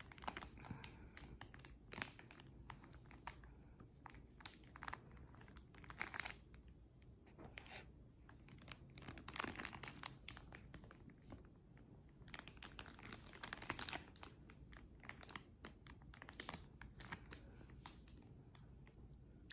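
Faint, irregular crinkling and crackling of the clear cellophane wrap around a fruit arrangement being handled, coming in scattered louder clusters.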